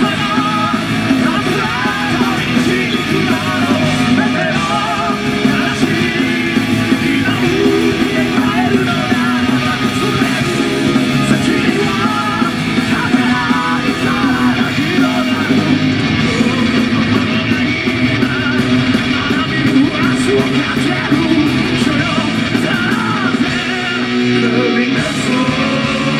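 Live heavy metal band playing: electric guitars and drums at full volume, with a male singer singing over them.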